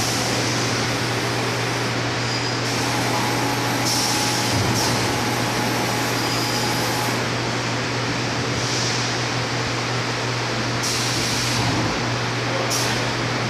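Industrial roll-cutting machine running: a steady mechanical hum under broad machine noise, with short bursts of high hissing every few seconds.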